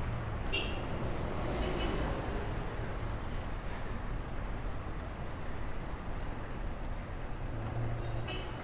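Road traffic noise from a city street: a steady rumble and hiss of passing vehicles.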